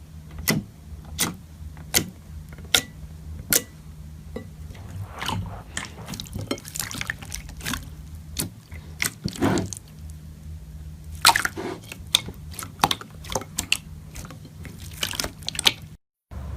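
Slime being squeezed and poked by hand, giving wet pops and clicks, about one every three quarters of a second at first, then quicker and irregular, over a low steady hum. The sound cuts out briefly near the end.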